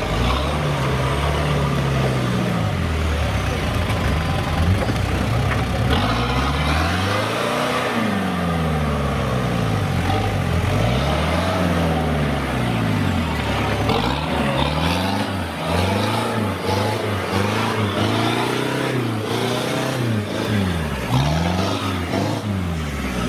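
Off-road 4x4 engine revved up and down over and over under load as the vehicle claws up a steep, muddy slope, its pitch rising and falling about once every second or two.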